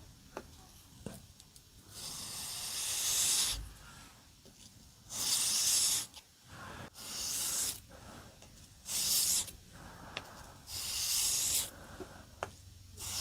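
Knife blade drawn by hand across a sharpening stone in slow strokes, a gritty hiss about every two seconds with faint ticks between them.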